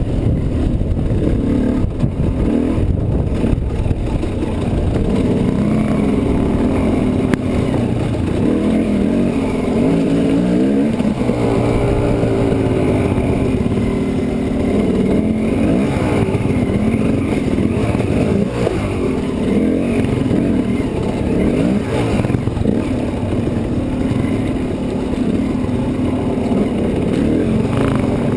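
Dirt bike engine running under load along a rough trail. Its revs rise and fall again and again as the throttle is worked.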